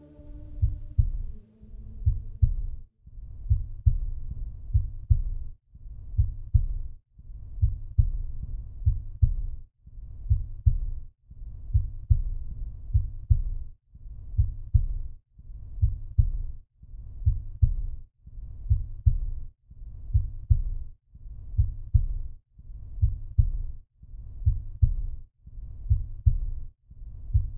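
Heartbeat sound effect: low, muffled double thumps repeating steadily, about one beat every 1.4 seconds.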